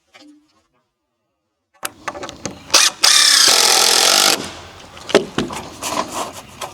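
Handling knocks, then a power drill driving a 3-inch deck screw into a wooden brace for about a second and a half, its pitch wavering under load. Scattered knocks and clicks follow.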